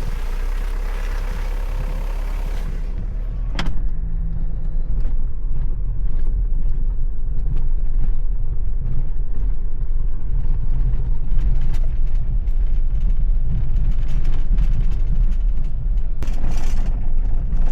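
Van driving through deep snow: a steady low rumble with many small knocks and crackles from the wheels and body. A hiss fades out about three seconds in, and a short rush of noise comes near the end.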